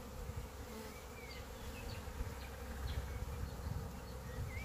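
Honeybees buzzing steadily as they fly around a Flow Hive.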